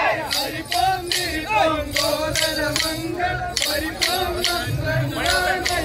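Street procession music: a sustained, wavering melody line over regular percussion strokes, about two or three a second.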